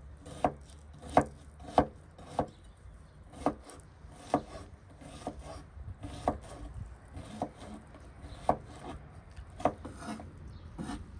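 A knife chopping on a wooden cutting board: sharp knocks at roughly one a second, unevenly spaced, as food is cut up.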